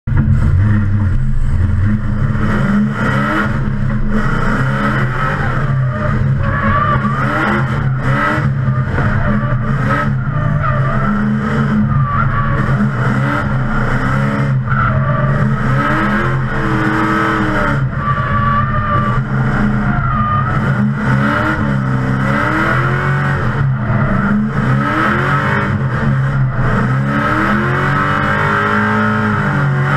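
LS2 V8 in a Nissan 350Z heard from inside the cabin, revving up and down again and again under throttle while drifting, with tyre squeal wavering over the engine.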